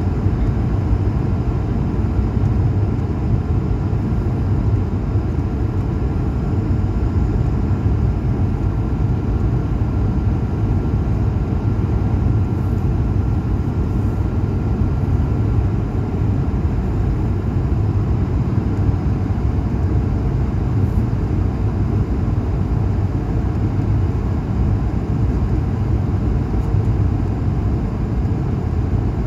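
Airliner jet engines and rushing air heard inside the cabin from a window seat: a steady, loud low roar with a faint high whine held above it.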